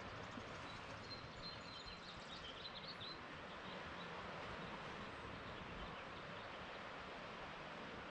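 Steady outdoor hiss of wind and distant surf, with a short run of high bird chirps about a second in.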